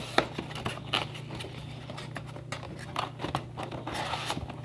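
Cardboard booster display box being opened by hand: scattered scrapes, rustles and small clicks as the lid flap is pulled back, over a low steady hum.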